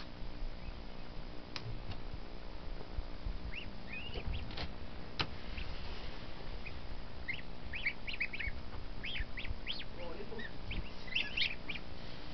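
Newly hatched goslings peeping inside an egg incubator: short high chirps that begin about three and a half seconds in and come thick and fast from about seven seconds. Under them runs the incubator's steady low hum, and a few sharp clicks come in the first seconds as the egg tray is pulled out.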